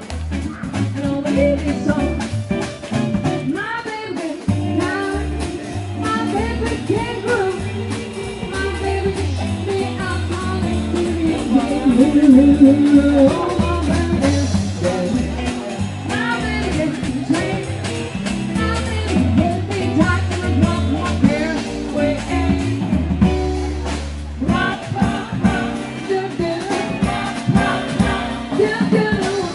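Live band music with a singer over a double bass line.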